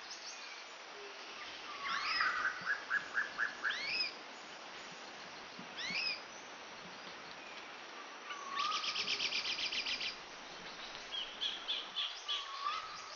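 Birds singing. Quick rising chirps come every couple of seconds, with a short trill about two seconds in, a fast run of high notes around nine seconds in and a cluster of chirps near the end.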